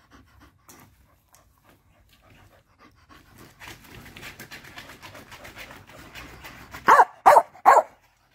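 Dog panting rapidly, then three loud, short barks in quick succession near the end.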